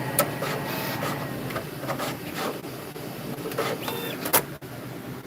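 3D printer running: irregular sharp clicks and short mechanical whirs over a steady low hum, with one louder click a little after four seconds in.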